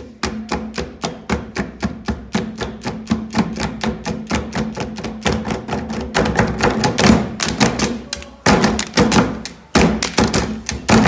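Hands slapping the top of a wooden desk one after another in a quick, even rhythm, about four or five slaps a second, growing busier after about six seconds. Near the end the slaps give way to hand claps, with two short breaks.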